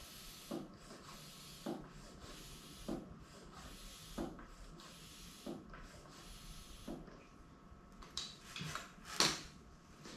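Hand pump being worked to inflate a punctured bicycle inner tube: about six even strokes, each a soft knock followed by a rush of air hiss, followed near the end by a few sharp clicks and knocks.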